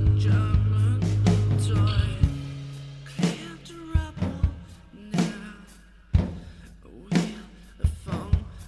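Band music: drum kit, bass and guitars playing together, thinning after about two seconds to a sparse break of single drum hits over low bass notes.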